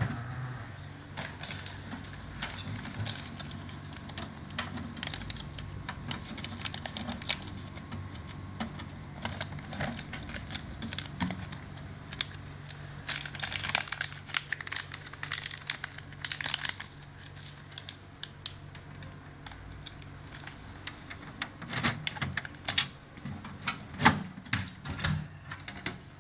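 Irregular clicks, taps and light rattles of hard parts being handled, over a steady low hum. The clicks come thickest in the middle and again near the end.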